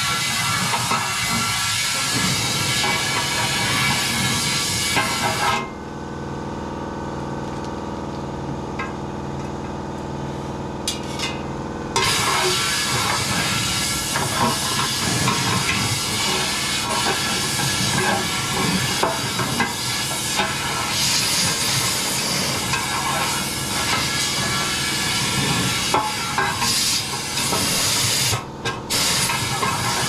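Compressed air from an air blow gun hissing into a stump grinder's fuel tank, blowing debris back out through the fuel outlet. The air cuts off for about six seconds a few seconds in, leaving a steady hum, then starts again, with a brief break near the end.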